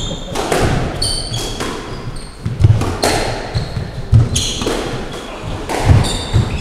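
Squash rally: the rubber ball cracking off rackets and the court walls about once a second, each hit ringing in the hard-walled court, with short high squeaks of shoes on the wooden floor between the hits.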